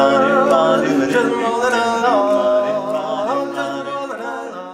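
Barbershop quartet of four men singing a cappella in close harmony, holding sustained chords with sliding notes, fading out near the end.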